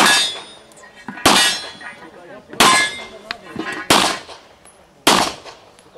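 Five pistol shots, evenly spaced about 1.3 seconds apart, each followed by a ringing tail. Steel popper targets clang and fall as they are hit.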